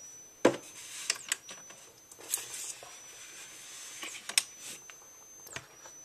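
Wheelock WS-24VDC fire alarm strobe running on its own: a thin, steady high-pitched whine from its charging circuit that bends in pitch briefly a few times as the strobe fires at a slow rate, with scattered sharp clicks.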